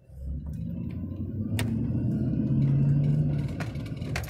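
2008 Chevy Silverado Z71 pickup engine, heard from inside the cab, rising in pitch and level as the truck pulls ahead, then easing off after about three and a half seconds. A couple of sharp clicks come through, one in the middle and one near the end.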